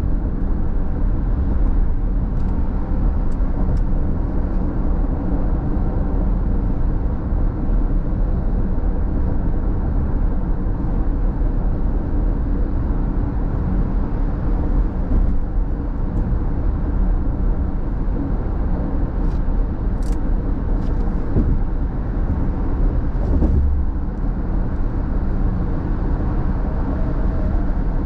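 Steady low rumble of a car cruising at freeway speed, tyre and engine noise heard from inside the cabin, with a few faint ticks.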